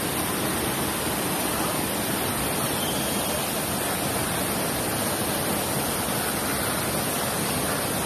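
Small waterfall pouring in a thin curtain over a rock ledge into a shallow pool, giving a steady rushing splash.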